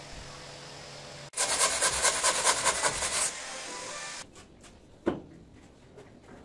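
Fast rhythmic scraping or rubbing strokes, about five a second, lasting about two seconds, followed by a single knock near the end.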